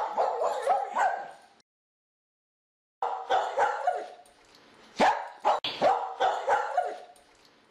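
Short, high dog-like yaps and barks in quick runs, broken about two seconds in by a second and a half of dead silence before the yapping resumes.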